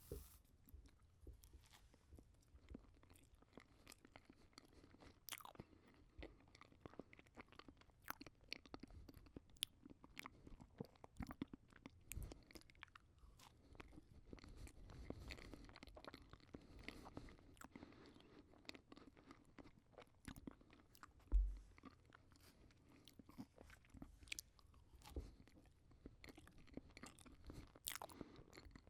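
A person chewing a mouthful of banana close to the microphone: a steady run of short, quiet mouth clicks and smacks. One brief low thump about two-thirds of the way through.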